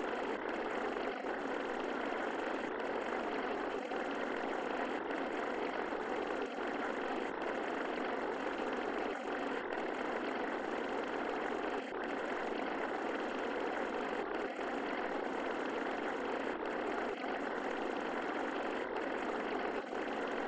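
Steady, even rushing noise with no deep bass and no melody: the masking background of a subliminal audio track.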